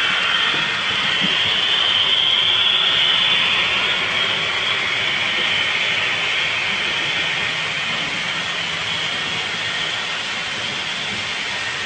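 HO-scale Union Pacific model train running on the layout's track: a steady rolling hiss with a high whine, getting slowly quieter as it moves on.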